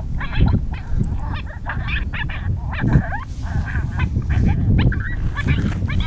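Coyotes yipping and howling in a chaotic chorus of overlapping, wavering high calls, over a low rumble.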